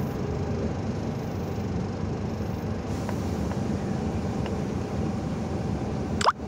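Steady engine and road drone inside a moving tractor-trailer's cab, with a few faint ticks. Near the end, a brief sharp rising chirp, then the sound dips for an instant.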